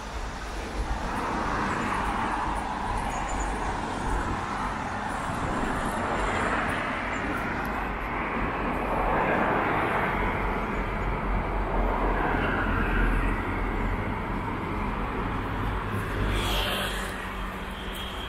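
Vehicle noise: a broad, continuous roar that swells and eases over several seconds, with a short higher hiss near the end.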